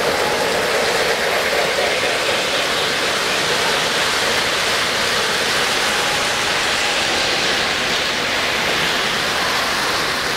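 Steady rushing din of three-rail O-scale model trains rolling along the layout's track, with no distinct chuff or whistle standing out.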